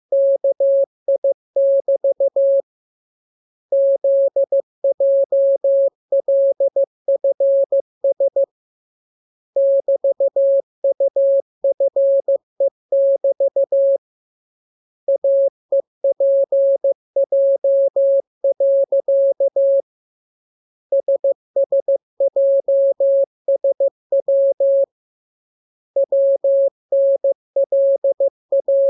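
Morse code practice signal: a single steady tone keyed on and off in dots and dashes, sent as groups of characters separated by pauses of about a second.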